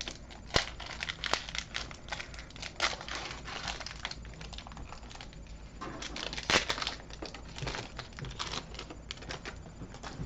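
Foil wrapper of a Pokémon trading-card booster pack crinkling as it is opened, in irregular sharp crackles, the loudest about half a second in and about six and a half seconds in.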